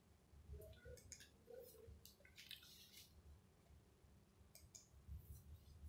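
Near silence: room tone with a few faint scattered clicks.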